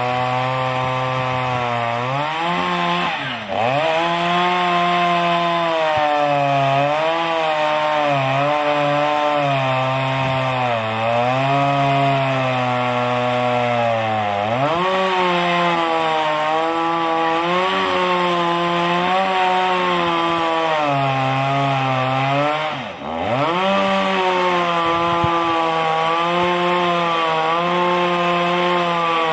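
Chainsaw running under load as it cuts wood, its engine pitch sagging and recovering as the chain bites. The throttle drops and picks up again twice, a few seconds in and about three-quarters of the way through.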